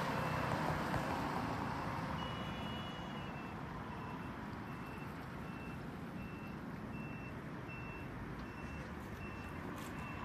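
XCMG QY12 truck crane's engine running, with its reversing alarm starting about three seconds in and beeping steadily, about two beeps a second.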